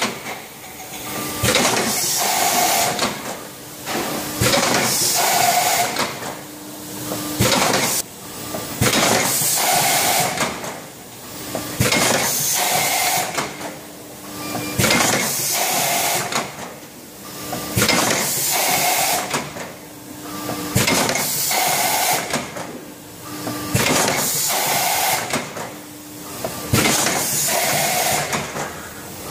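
Automatic tube filling and sealing machine running in a steady cycle: about every two seconds a burst of hissing air from its pneumatic stations, with clicks and clanks of the mechanism in between.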